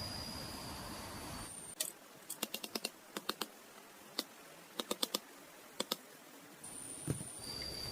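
A quick, irregular run of sharp light clicks or taps, in small clusters. Around them, a steady high insect drone cuts out just before the clicks begin and comes back near the end.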